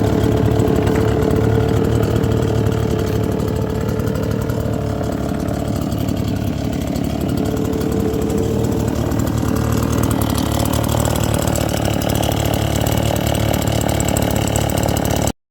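Small petrol engine of a power tool running steadily, its pitch easing slightly for a few seconds midway, then cutting off abruptly near the end.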